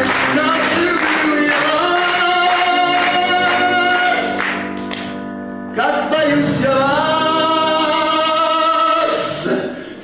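Stage-musical song: singing with instrumental accompaniment, in long held notes. It drops to a quieter passage for about a second near the middle, then comes back in full.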